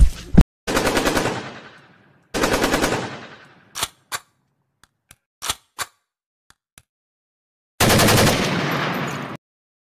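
Machine-gun fire sound effect: three bursts of rapid automatic fire, with a few single shots between the second and third bursts, the last burst starting about eight seconds in.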